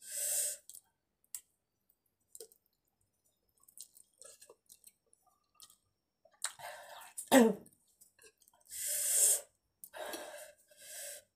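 A person eating very spicy noodles: soft chewing clicks, with sharp hissing breaths and sniffs from the chili heat. About seven seconds in comes a loud, short voiced sound that falls in pitch.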